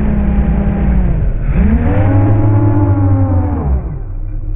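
FPV quadcopter's motors and propellers buzzing under changing throttle. The pitch drops about a second in, climbs back as the throttle comes up, and falls again near the end.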